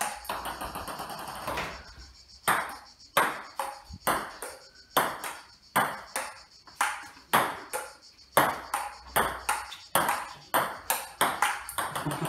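Table tennis rally: a ping-pong ball clicking off the bats and the table about twice a second, a steady rally from about two seconds in.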